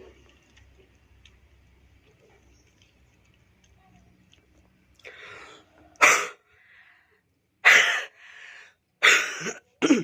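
A man's harsh, hacking coughs, about four in the second half, with rasping breaths between: a productive cough bringing up phlegm that he says is turning red, like blood.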